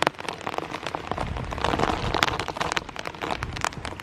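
Rain falling, with many separate drops striking close to the microphone as sharp ticks. The rain sound grows denser and louder for about a second around two seconds in.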